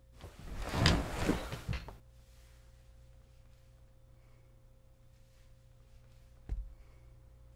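A rush of breathy noise with three swells lasting under two seconds near the start, then a single dull thump about six and a half seconds in, over quiet room tone with a faint steady hum.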